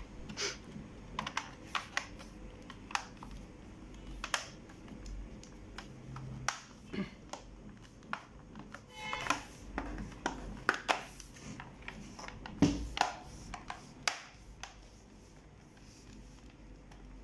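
Bottom cover of an HP 450 G6 laptop being seated and pressed down onto the chassis: a run of sharp, irregular clicks and knocks as its clips snap into place, the loudest about two thirds of the way through.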